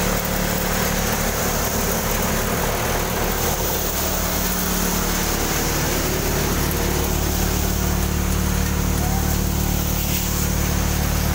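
Mobile grain thresher running steadily while threshing chickpeas: an even mechanical drone with a low hum under a wide rushing noise.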